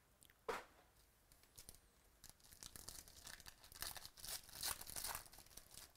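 Plastic wrapper of a trading-card pack being torn open and crinkled by hand: a short knock about half a second in, then a couple of seconds of dense, faint tearing and crackling.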